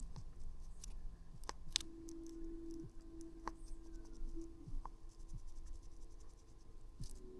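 Irregular small clicks and scratches of a port-cleaning tool being worked inside a phone's charging port.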